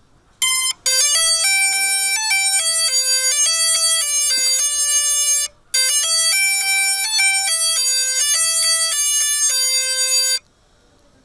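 Skyartec Butterfly's motors playing a melody of short, stepped beeping tones, like a ringtone. The tune breaks off briefly about halfway through and stops shortly before the end.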